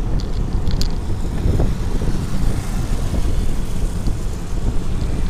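Wind buffeting the microphone of a handlebar-mounted action camera on a moving bicycle: a steady, loud low rumble with no clear engine note.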